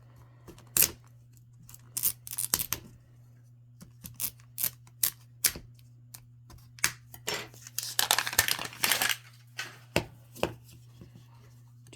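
Miniverse plastic capsule ball and its wrapping being handled and opened: scattered sharp clicks and taps, with a longer stretch of crinkling and tearing about eight seconds in.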